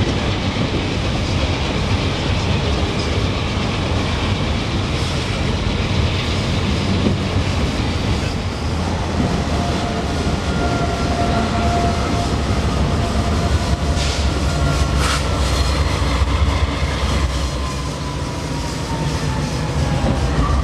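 Long freight train of boxcars rolling past, with a steady rumble and clickety-clack of wheels over the rail joints, and a faint wheel squeal drawn out from about halfway through. Two sharp clanks come a little past the middle. Near the end, the low rumble of the GE diesel helper locomotives pushing at the rear of the train comes through.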